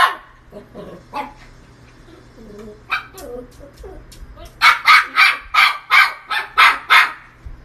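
A puppy barking at its own reflection in a mirror: one bark about three seconds in, then a quick run of about ten barks near the end, roughly four a second.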